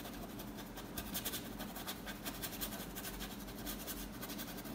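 A paintbrush dabbing and stroking paint onto canvas: soft, irregular scratchy strokes, several a second.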